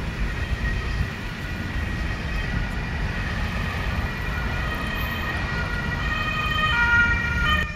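Busy street traffic: a steady low rumble of engines and tyres, with a high steady tone that grows louder toward the end.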